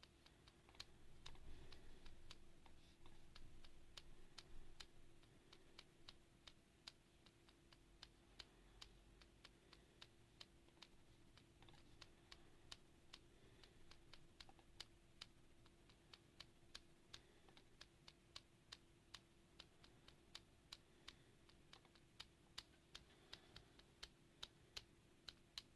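Typing on a mechanical keyboard: soft, irregular key clicks, a few a second, with a faint steady hum underneath.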